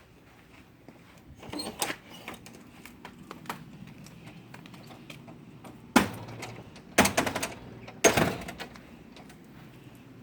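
A door being opened and shut: three loud clunks about a second apart, each followed by a short rattle, after softer knocks and rustling.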